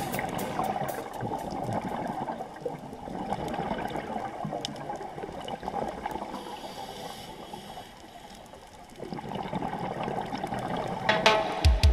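Underwater bubbling and gurgling of a scuba diver's exhaled regulator bubbles, heard muffled through a camera housing. It eases off for a few seconds partway through, then picks up again. Music comes back in near the end.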